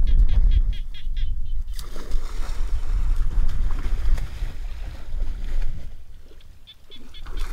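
A duck giving a quick run of quacks, then loud splashing and churning water as a man dives and wades through a shallow muddy ditch after it, and a few more quick quacks near the end. A heavy low rumble runs underneath.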